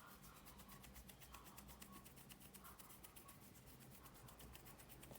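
Near silence: faint room tone with faint background music.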